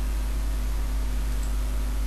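Steady background hiss with a strong low hum, the open microphone's noise floor; nothing else happens.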